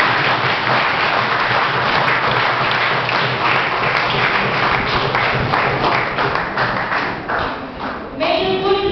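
Audience applauding, a dense steady clatter of many hands clapping. It dies away about eight seconds in as a voice resumes.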